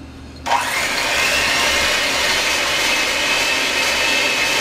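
Electric hand mixer switched on about half a second in, its motor pitch rising quickly to speed and then running steadily as the beaters mix softened cream cheese.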